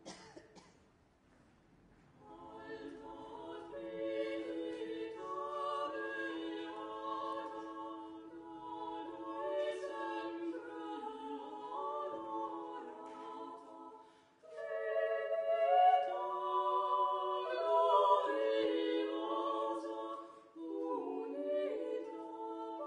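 Unaccompanied choir singing a Florentine lauda in sustained chords. The voices come in about two seconds in, with brief breaks near the middle and again near the end.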